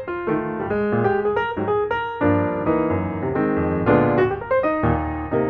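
Background piano music: a quick run of melody notes over chords and bass notes.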